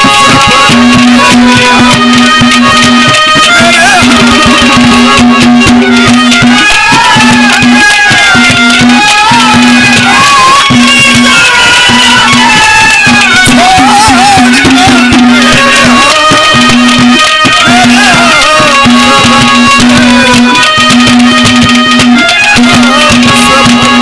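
Live Haryanvi ragni folk music: a hand drum beating, with held reed chords and a wavering melody line over them.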